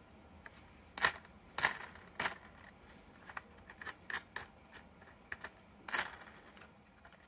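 Hard plastic clicks and clacks from a toy dump truck being handled, its tipper bed tilting up and dropping back. Three louder clacks come in the first two seconds or so and another about six seconds in, with lighter ticks between.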